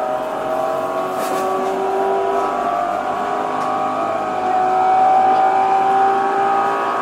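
Tokyo Metro 07 series electric train running, heard from inside the car: the VVVF inverter and traction motors whine as several steady tones that slowly rise in pitch, over rail and wheel noise.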